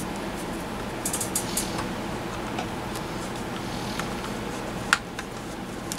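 Plastic pry tool working the case off a smashed iPhone 6: faint scraping and crackling about a second in, then a single sharp click near the end, over a steady low hum.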